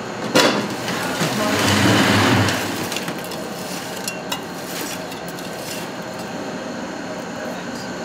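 Caramel corn scraped and tossed with a metal scoop on a stainless steel cooling tray: a knock, then a rush of rattling and crunching clusters for a second or two. After that come scattered clicks over a steady background hum.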